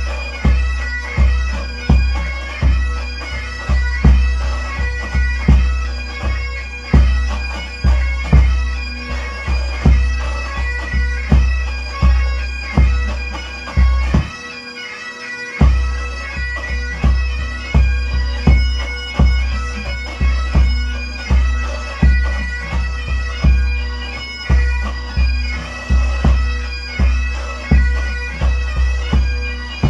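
Scottish pipe band bass drum struck with soft-headed flourishing mallets in a steady beat, over bagpipe music with its steady drone. The drum drops out for a moment about halfway through while the pipes play on.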